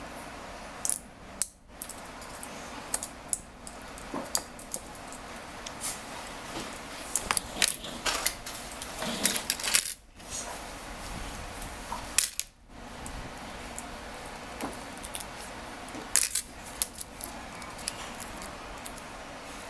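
Light metallic clicks and clinks of tiny screws and iPhone parts being set down and picked at with a screwdriver and tweezers during a phone teardown. They come irregularly, several per second at times, over a steady background hiss.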